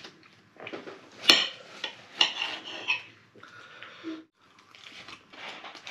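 Knife and fork scraping and clinking against a plate while cutting through a burger, with one sharp clink about a second in.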